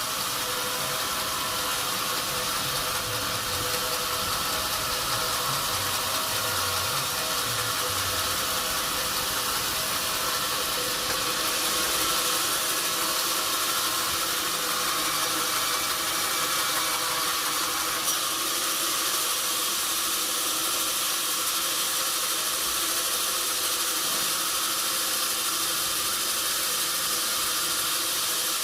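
Sawmill machinery running steadily: a continuous mechanical hum with a strong even hiss over it, with one small tick about two-thirds of the way through.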